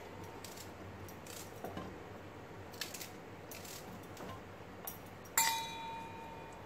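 Light clicks of onion pieces dropped into a plastic hand chopper, then about five seconds in a sharp metallic clink against a stainless steel bowl that rings on with a clear tone for about a second.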